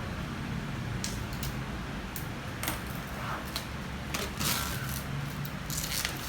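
Rustling, light clicks and knocks of new hardcover textbooks and their packaging being handled, coming at irregular moments over a steady low hum.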